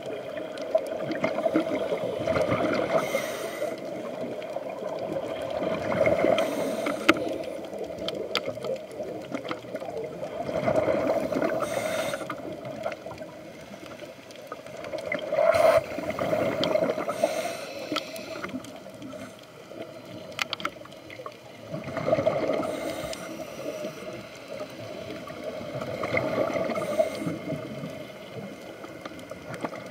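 Scuba diver breathing through a regulator, heard underwater: a gurgling rush of exhaled bubbles that swells and fades in cycles about every five seconds.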